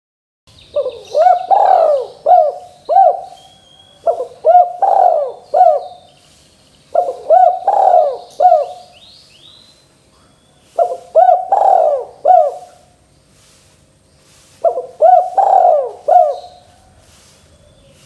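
Spotted dove (tekukur) cooing: five phrases of four or five quick notes each, one every three to four seconds.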